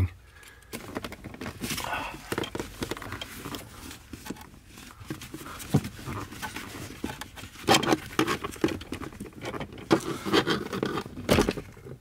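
Irregular clicks, knocks and rustling from gloved hands working the clutch pedal assembly loose under the dashboard of a BMW E92 M3.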